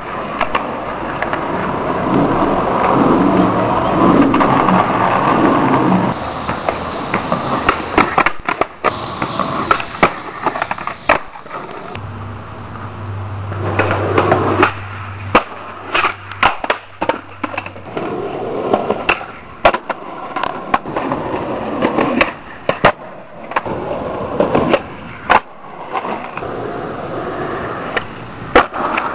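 Skateboard wheels rolling on pavement, broken by many sharp clacks as the board pops, hits and lands on tricks.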